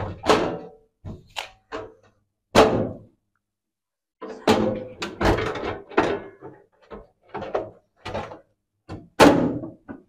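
Irregular bumps, thuds and scraping as the metal body of an IPS inverter is handled and wiped down. The two loudest thuds come about two and a half seconds in and near the end.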